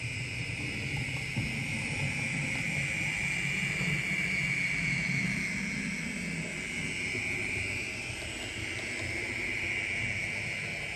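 HO scale Proto 2000 USRA 0-6-0 model steam locomotive running slowly on standard DC with no sound decoder: the motor and gear drive give a steady high whine over a low rumble of the wheels on the rails.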